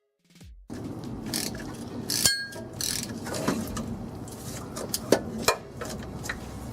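Hand tools at work on the torque converter bolts: ratchet clicking and metal-on-metal clinks. There is a ringing metallic ping a little over two seconds in and two sharp clanks around five seconds in.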